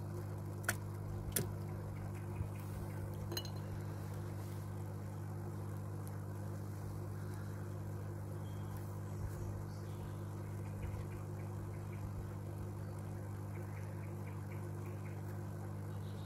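Fish-tank air pump humming steadily as it drives air through an airstone in the etching tank's baffle chamber, with a few light clinks in the first few seconds.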